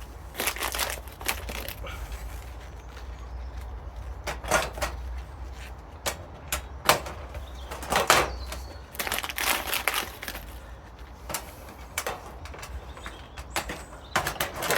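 Irregular metallic knocks, clatters and sharp clicks as steel raised-bed panels are handled and riveted together with aluminium pop rivets. The clicks are scattered and uneven, with a few louder ones, the sharpest about seven seconds in.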